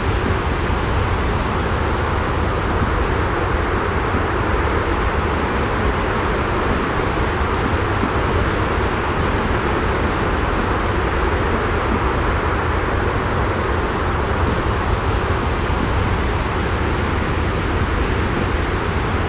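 Steady, unbroken rushing noise with a strong low rumble: a continuous white-noise sleep ambience.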